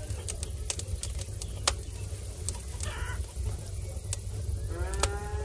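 Farmyard hens clucking, with scattered sharp clicks over a steady low rumble. Near the end a cow starts mooing.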